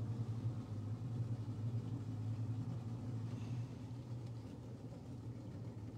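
Boat engine running slowly with a steady low hum, easing off about four seconds in as the boat comes up to a flooded house.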